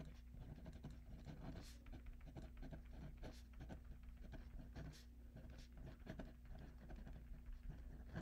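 Pen writing on paper: faint, quick, irregular scratching strokes as words are written out, over a low steady hum.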